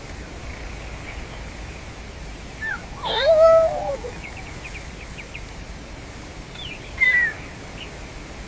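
A few animal calls over a steady outdoor background hiss. One louder, bending call comes about three seconds in, followed by a few short high chirps, and a shorter falling call comes about seven seconds in.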